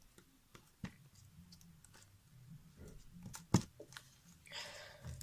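Slime and its plastic containers being handled on a table: quiet handling noises with a few short taps, the sharpest about three and a half seconds in.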